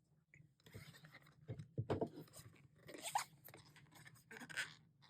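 Irregular rustling and handling noise from the paper and plastic contents of a K-pop album being taken out and sorted by hand.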